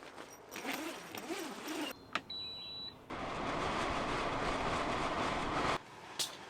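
Short electronic beep from the portable air conditioner, then the steady rush of its fan blowing air, which cuts off abruptly near the end.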